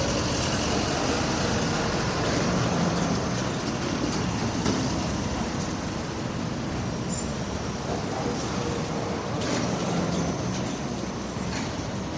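Steady rumble of a city construction site, with machinery and traffic running and a few sharp metallic knocks.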